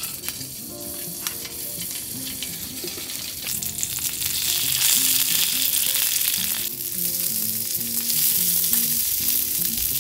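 Sausages sizzling in a frying pan on a gas canister stove, the sizzle growing louder about four seconds in.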